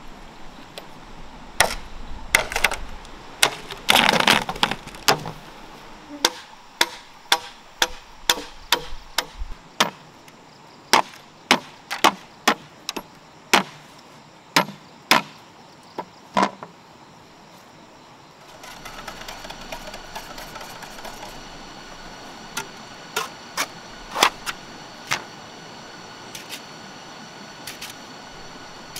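Jungle knife chopping green bamboo poles: a long run of sharp woody strikes, about two a second at their quickest, that stops a little over halfway through, followed by only a few scattered strikes.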